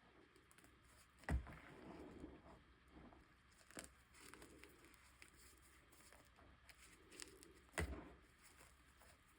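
Blocks of chalk snapping and crumbling in the hands. There is a sharp snap about a second in and another near the end, with a smaller crack in between and soft crackling after each.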